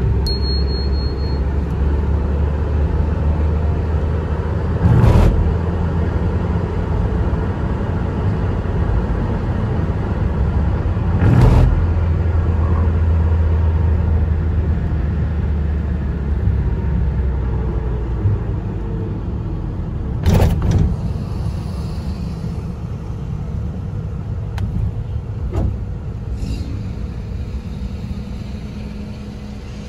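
Car driving on the road: steady low engine and road rumble, broken by sharp thumps about 5, 11 and 20 seconds in. The rumble eases off in the second half, and a steady low hum takes over near the end.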